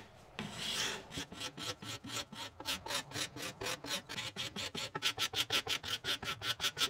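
Freshly sharpened steel card scraper scraping an old wooden tool handle, cutting fine curls. One longer stroke comes first, then quick short strokes, about five a second, from about a second in.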